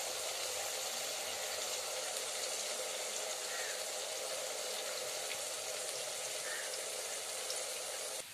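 Sliced onions sizzling steadily in hot ghee in an aluminium karahi, being fried until brown.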